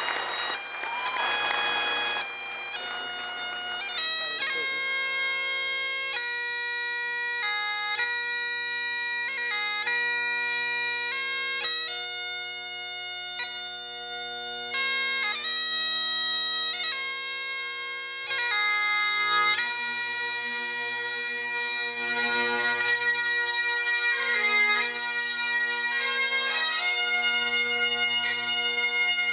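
Great Highland bagpipe played solo: the steady drones hum beneath a chanter melody of quick, stepping notes.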